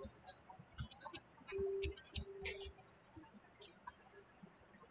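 Typing on a computer keyboard: an irregular run of quick key clicks.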